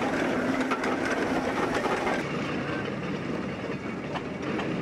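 Steam roller running, with a steady noise of steam and clattering machinery and scattered clicks; the sound changes about two seconds in.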